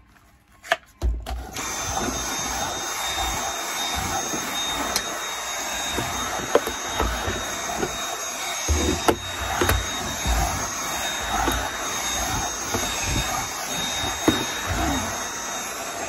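Dyson cordless handheld vacuum cleaner clicked on about a second in, then running steadily with a high motor whine while its nozzle works over a carpet-lined drawer, with irregular low knocks as the tool is moved about.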